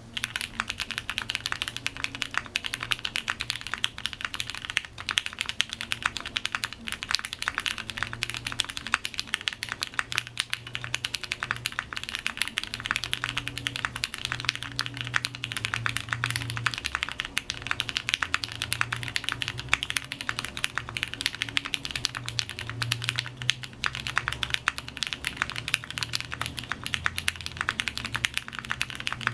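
Continuous typing on a Matrix 2.0 Add TKL mechanical keyboard: lubed pre-tooled Cherry MX Brown tactile switches in an aluminium plate, with GMK keycaps and Krytox-lubed stabilizers. It is a fast, dense stream of keystrokes.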